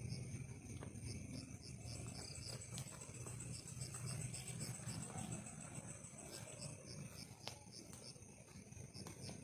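Forest insects calling: short high chirps repeating a couple of times a second over a steady high drone, with a fast high trill that starts about two seconds in and stops a little after two-thirds of the way through. A faint low rumble runs underneath.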